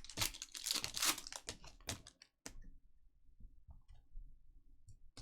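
Trading card pack wrapper being torn open and crinkled for about two seconds, followed by a few faint ticks of cards being handled.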